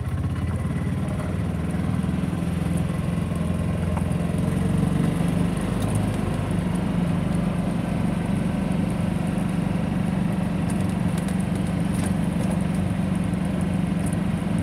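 Golf cart's small engine running steadily as it drives along.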